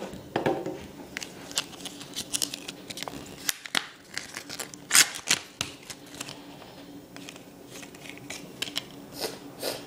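Clear plastic phone-style case being pressed onto an iPod Touch by hand: irregular sharp plastic clicks and snaps with handling rubs, the loudest about five seconds in.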